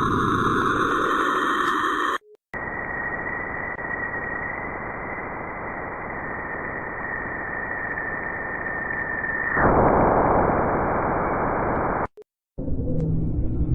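Space radio signals recorded by NASA instruments and converted to audio: a steady static hiss with a thin, steady high tone over it. The tone stops a few seconds before the end and the static grows louder. Short silent breaks separate it from the neighbouring clips.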